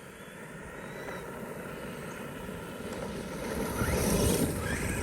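Traxxas E-Revo electric RC truck driving over gravel, growing steadily louder as it comes closer. Tyres crunch on the gravel, and the electric motor gives a short rising whine as it speeds up near the end.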